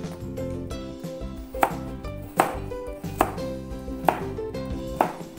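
Wide-bladed kitchen knife chopping a carrot into half-moon slices on a cutting board: five sharp knocks of the blade on the board, a little under a second apart, the first about a second and a half in.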